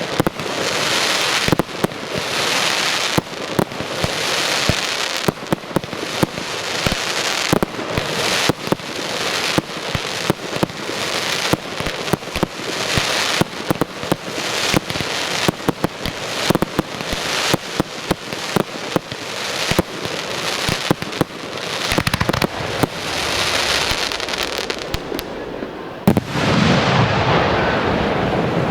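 Fireworks display: a rapid, continuous run of sharp bangs from bursting aerial shells, with crackling and fizzing between them. About 26 seconds in, one last loud bang, after which a lower, steadier noise remains.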